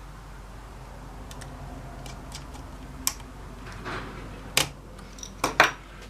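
Small hard plastic clicks and taps of laptop parts being handled and pressed into place: a few light ticks early, then sharper clicks about three and four and a half seconds in and a quick pair near the end.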